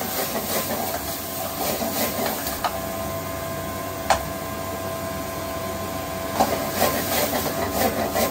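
Stir-frying in a wok: a steady hiss with a hum underneath, broken by metal spatula scrapes and clanks against the wok, one sharp clank about four seconds in and several more near the end.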